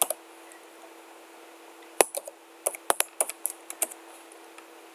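Computer keyboard typing: one key click, then after about two seconds a quick run of about ten keystrokes as a word is typed, over a faint steady hum.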